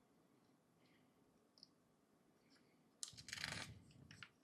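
Near silence, then about three seconds in a short run of small clicks and rustling as LEGO plastic pieces are handled and pressed together.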